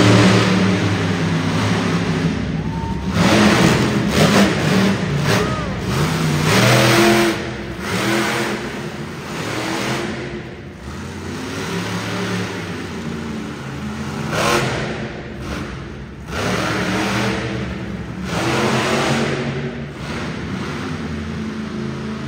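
Monster truck engine revving hard in repeated surges, rising and falling between bursts of throttle.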